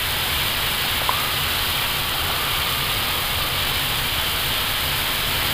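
Steady rushing noise of airflow on an Airbus A320 flight deck during descent.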